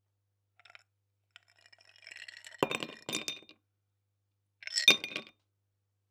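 Ice cubes dropped into a glass, clinking and rattling against it. A few light ticks come first, then two loud clattering drops about two and a half to three seconds in, and another near five seconds.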